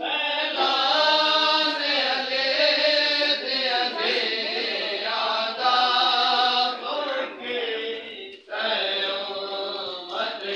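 A group of men chanting a mourning lament (noha) together, a sustained melodic recitation that breaks off briefly about eight seconds in and resumes.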